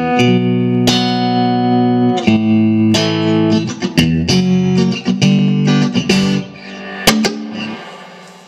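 1959 Fender Stratocaster electric guitar played through an amplifier: a run of picked chords and notes, the last one left to ring and fade out over the final couple of seconds, with a sharp pick or string click just after the fade begins.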